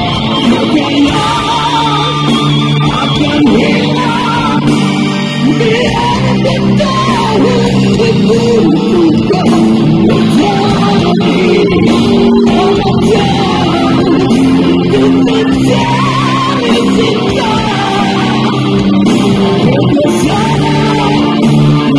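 Live rock band playing loudly through a concert PA, with distorted electric guitars to the fore over drums and bass.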